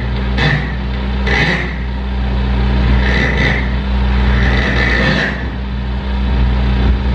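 Experimental noise improvisation: a steady low electronic drone holds throughout, while rasping, hissing noise bursts sound over it, short and about one a second at first, then two longer ones about three and five seconds in.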